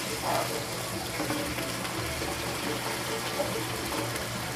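Raw chicken pieces sizzling steadily in hot oil in a large frying pan as more pieces are dropped in.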